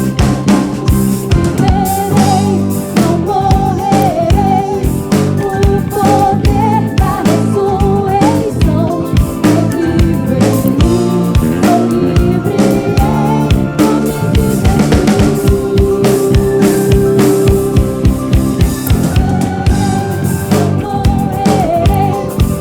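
Live soul band playing: a singer's melody over drum kit, bass, guitar and keyboards, with a steady beat.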